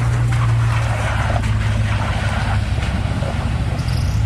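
Off-road 4x4's engine running steadily as it crawls over rocks in a river crossing, with a rushing noise over it for the first two and a half seconds or so.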